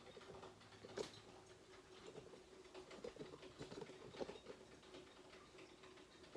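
Near silence: faint scattered clicks and rustles of a phone being handled, with a sharper click about a second in, over a faint steady hum.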